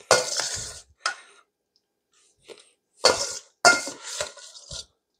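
A serving utensil clinks and scrapes against bowls as sauced pasta is dished into a serving bowl, in several short bursts of clatter.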